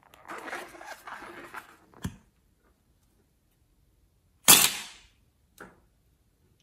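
Hands rubbing a slime-filled latex balloon, a rustling noise for the first couple of seconds, then a click. About four and a half seconds in comes a loud, sharp snip as scissors cut through the balloon's rubber neck, followed by a smaller click.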